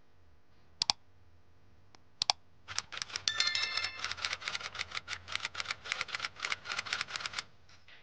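Like-and-subscribe overlay sound effects: two quick pairs of mouse clicks, then a rapid run of typing-like clicks lasting about four and a half seconds, with a short bell-like ring near its start.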